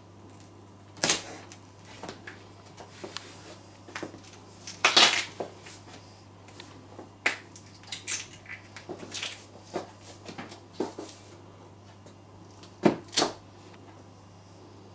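Stiletto heels bearing down on raw carrots on a tiled floor: the carrots crack and snap under the heels, mixed with heel taps on the tile. The sharp cracks come one at a time, with a loud cluster about five seconds in and two in quick succession near the end.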